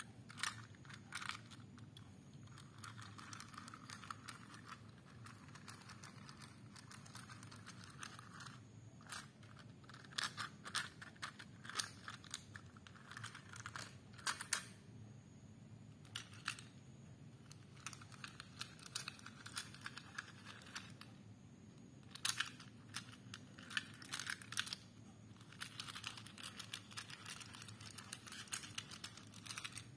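Small Thomas & Friends toy engines and plastic toy train track being handled: light, irregular clicks and taps as the engines are set on the rails, some in quick runs, over a faint low hum.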